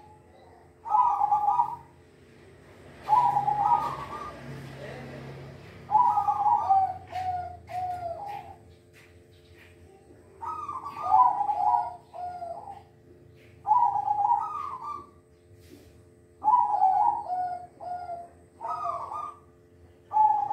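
Silver perkutut (zebra dove) singing its cooing song: a rolling, bubbling phrase repeated about every two to three seconds, some phrases trailing into a few shorter clipped coos.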